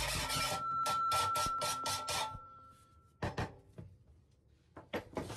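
Hand file rasping against the edge of galvanised steel trunking, about four or five quick strokes a second, fading out after about two seconds. A few seconds later, a short clatter of tools being set down on the bench, and another knock near the end.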